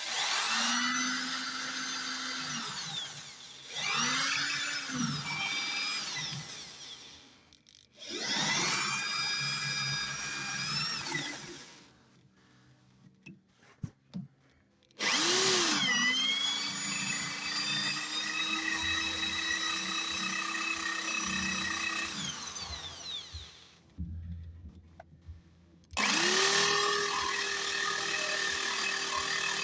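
Power drill with a 6 mm bit drilling holes into a metal front brake part for brake-pad anti-rattle springs. It runs in five separate bursts: the motor's whine rises as each burst starts, holds steady while cutting, and winds down at release, with short pauses between.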